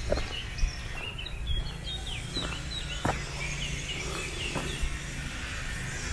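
Small birds chirping and singing, many short quick notes overlapping, over a steady low rumble, with a few soft footsteps.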